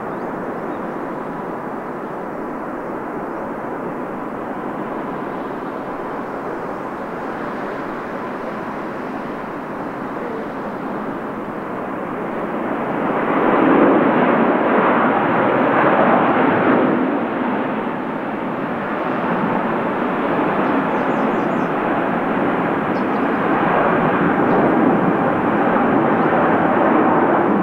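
Jet engine noise from a Korean Air Boeing 777-300ER's GE90-115B turbofans at takeoff power, a steady broad rush. It grows loudest about halfway through, eases briefly, then swells again near the end.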